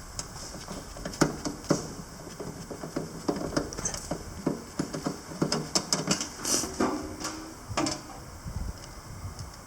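Panasonic MINI160 semi-automatic wire-feed welder's arc crackling and spitting in irregular short bursts from about a second in until near the end.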